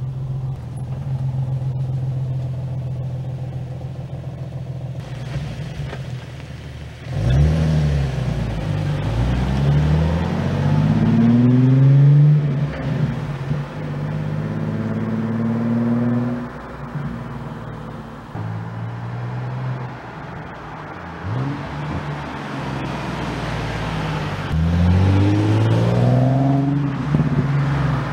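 Nissan 370Z's V6 with an Auto Dynasty cat-back exhaust, revved and accelerating hard in several rising pulls that drop at each shift, then one more strong pull near the end as the car comes closer.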